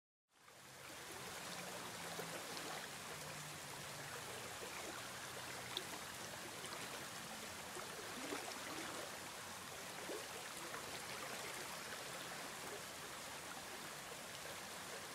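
Shallow stream running over rocks, a steady rush of water that fades in just after the start.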